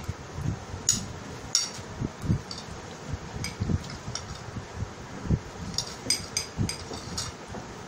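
Metal spoons clinking and scraping on plates as rice is scooped and eaten: a dozen or so short, sharp clinks, scattered and thicker in the second half. Dull low thumps come in between, over a steady hiss.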